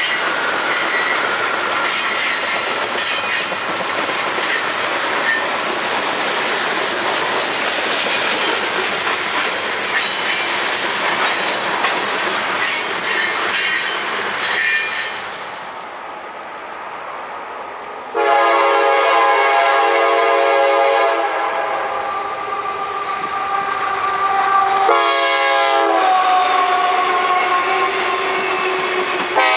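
Freight cars (tank cars and covered hoppers) rolling past, with a steady clatter of wheels over rail joints and some wheel squeal, which cuts off about halfway through. Then the CSX AC4400CW diesel locomotive's air horn sounds a chord of several notes: a long blast of about three seconds, a short blast a few seconds later, and another blast at the very end, over the running locomotive.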